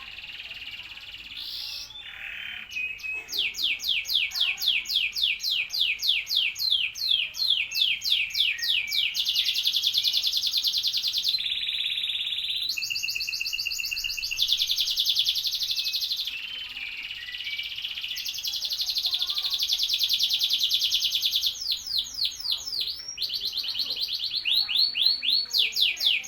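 Domestic canary singing continuously: a long song of fast trills and rolling repeated notes, changing from phrase to phrase, quieter at first and loud from about three seconds in.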